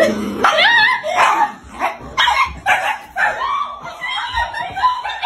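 Small dog barking and yipping, a quick run of short high calls, as a hand in a mitt reaches for it.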